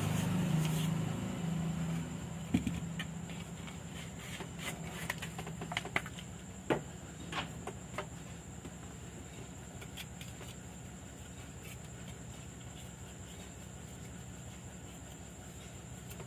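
A small brush scrubbing a water-damaged Honda Livo meter circuit board for the first two seconds or so, cleaning it. Then a scattering of light clicks and taps, then a low steady hum with a faint, constant high whine.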